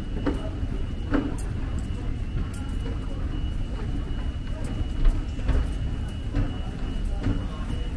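Subway rail ambience on the Los Angeles Metro D Line: a steady low rumble with a constant thin high-pitched whine, and scattered short knocks and clatters.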